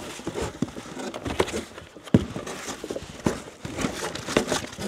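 Plastic and cardboard packaging rustling and crinkling as hands rummage through a box of wrapped furniture parts, with a couple of sharp knocks, the sharpest about two seconds in.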